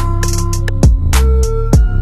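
Background music with a heavy bass and a steady drum beat.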